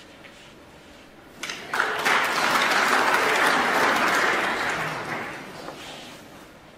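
Snooker arena audience applauding a shot. A few scattered claps come in about a second and a half in, quickly swelling into full applause that dies away over the last couple of seconds.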